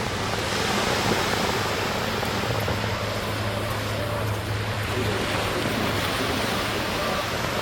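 Sea waves washing onto the beach, a steady rush of surf with a constant low hum underneath.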